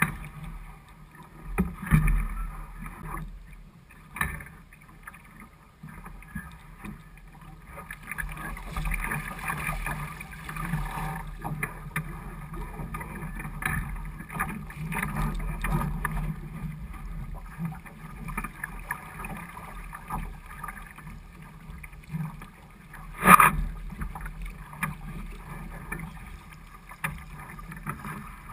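Small sailing dinghy under way through chop, water washing and slapping against its hull. A few sharp knocks break through, the loudest near the end.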